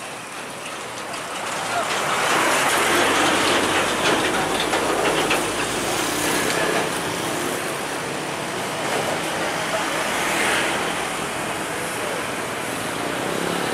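Road traffic passing a railway level crossing: a steady wash of vehicle noise, with voices in the background.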